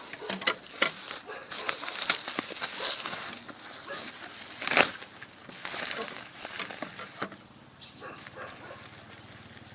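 Plastic packaging crinkling and rustling as it is handled, with many small clicks and knocks. After about seven seconds the handling drops away, leaving a faint low hum.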